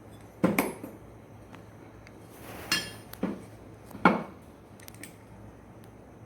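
Metal engine parts knocking and clinking as the halves of a small two-stroke crankcase are handled and fitted together: a sharp knock about half a second in, a brief scraping, ringing clatter just before three seconds, and two more knocks around three and four seconds.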